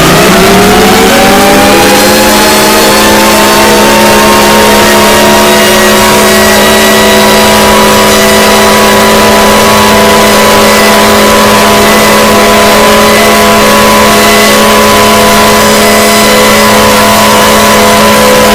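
Civil-defence warning siren finishing its wind-up and then holding one loud, steady wail with several tones sounding together.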